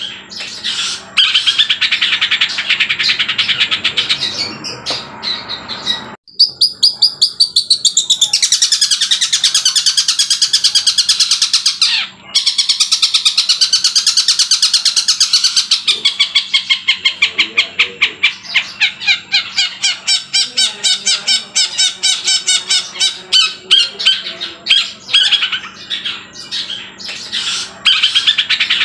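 Young long-tailed shrike (cendet) singing loud, fast chattering runs of repeated high notes, about six a second, in its mimicry song. The song breaks off briefly about six seconds in and again near twelve seconds.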